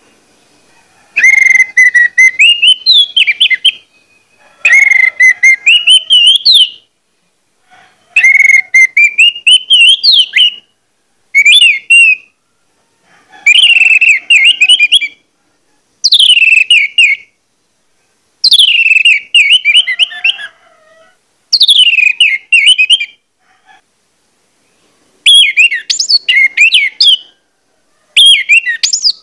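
Orange-headed thrush singing its full, insistent song: about ten loud whistled phrases, each one to two and a half seconds with short pauses between. The first phrases climb in pitch, and the later ones start high and tumble downward.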